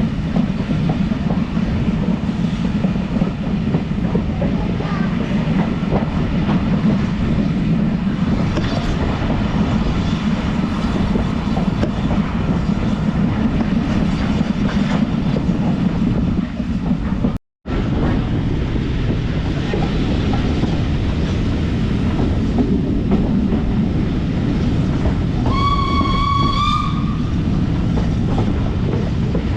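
A train running on the rails, with a steady low rumble and clickety-clack of the wheels. About 25 seconds in, the train's whistle sounds once for about a second and a half.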